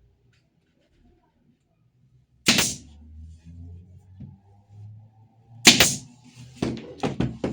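A tool rubbing or scraping on wood in strokes: two loud strokes a few seconds apart, then a quick run of shorter strokes, about four a second, near the end.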